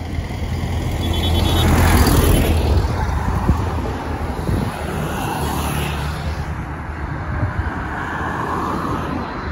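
Road traffic: vehicles passing with a steady low rumble, loudest about two seconds in and swelling again around five to six seconds.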